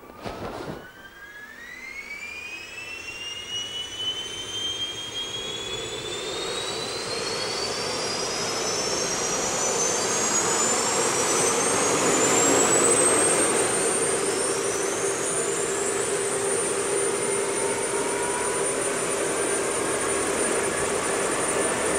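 Helicopter turboshaft engine starting and spooling up: a whine rising steadily in pitch for about fourteen seconds, then holding a high steady tone, with a lower hum building underneath. A short knock about half a second in.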